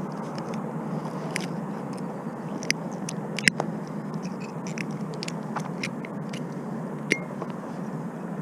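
Scattered sharp clicks and light scrapes, about a dozen at irregular intervals with the loudest about three and a half seconds in, from gear being handled aboard a kayak, over a steady background hiss and rumble.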